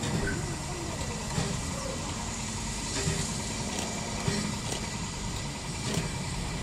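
Steady low mechanical rumble of an engine running at rest, with a few faint clicks.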